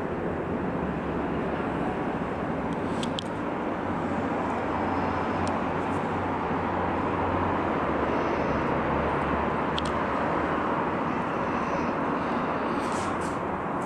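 Steady outdoor city background noise, a continuous rushing rumble like distant road traffic, with a few faint short clicks.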